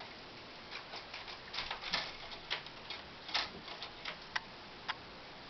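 Irregular light clicks and taps of hard plastic, from hands working at a Lego model on its wall mount, over a faint steady hiss. The sharpest clicks come about two and three and a half seconds in, and the last two just before the end.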